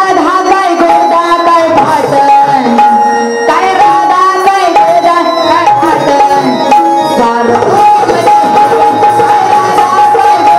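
Live Marathi gavlan folk song: a young woman sings a bending, ornamented melody into a microphone. She is backed by a held keyboard tone and brisk strokes on a two-headed barrel drum.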